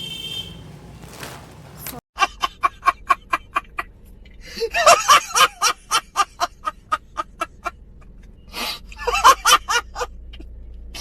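Laughter in rapid short bursts, about four a second, growing denser twice, around the middle and near the end.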